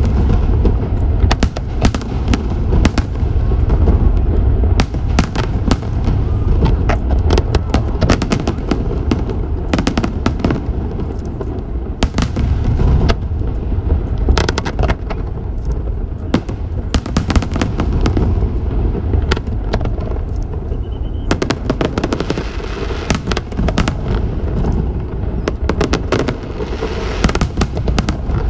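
Aerial fireworks display: a dense, continuous barrage of sharp bangs and crackles over a steady low rumble of bursting shells.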